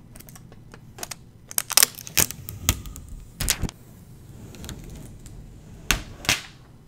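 Cardboard and plastic packaging being opened and handled as a mini workstation is lifted out of its box: scattered sharp clicks and knocks with some rustling, loudest about two seconds in and again near the end.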